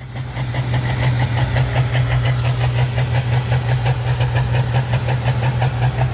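A pulling tractor's engine running steadily at an even, low pitch, with a regular pulse in its sound.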